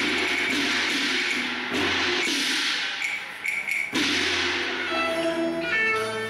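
Cantonese opera band playing an instrumental passage. A dense clashing percussion texture is joined by a sharp knock about four seconds in, and then bowed fiddles take up a melody near the end.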